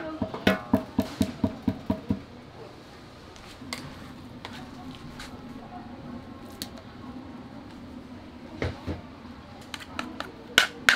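A metal ladle knocking against a stainless-steel mixing bowl, about eight quick, evenly spaced metallic taps with a short ring in the first two seconds. A low steady hum follows, and a few louder knocks come near the end as paste is scraped from a steel tray into the bowl.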